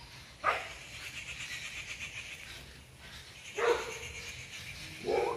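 Siberian husky puppy giving short yelps, three times, each dropping in pitch.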